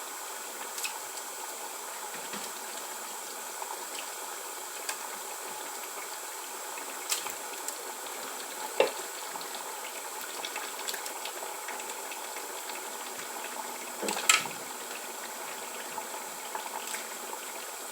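A pot of stew sauce bubbling on a gas cooker: a steady hiss with scattered small pops and clicks, and a few louder knocks, the loudest about 14 seconds in.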